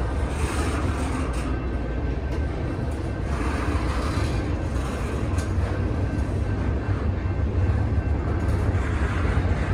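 Double-stack intermodal train's loaded well cars rolling past close by: a steady low rumble of steel wheels on rail with a faint high whine over it. A few sharp clanks come through about a second and a half, two and a half, and five and a half seconds in.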